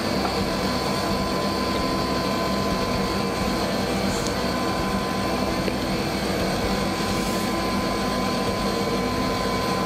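Steady machine noise from a running motor: an even drone with a constant high whine over it, holding level throughout.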